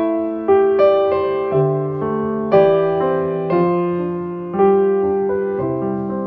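Background music: a piano playing slow chords, each struck and left to ring and fade.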